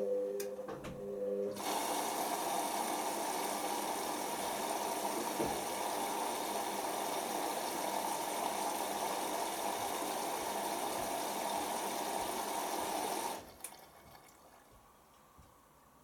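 Hoover Optima OPH714D washing machine in its load-sensing phase: a brief motor whine as the drum turns, then water rushing in through the fill valve for about twelve seconds before it cuts off suddenly.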